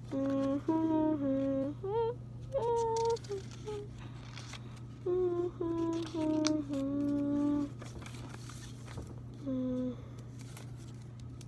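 A child humming a tune to himself in short held notes with little slides between them, in several phrases with pauses and one last note near the end. A steady low background hum runs underneath.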